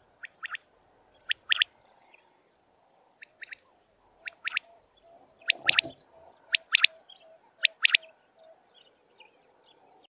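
Common quail calling: short, sharp notes in groups of two or three, repeated about once a second and louder from about five seconds in.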